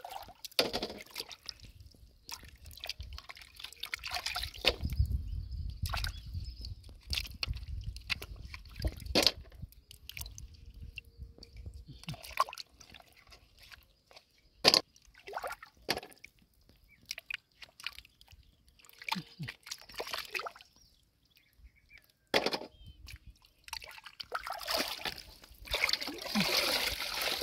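A hand sloshing and splashing in shallow muddy water while pulling bivalves from a mud bank, with scattered sharp clicks and knocks as shells are handled. The splashing grows denser near the end.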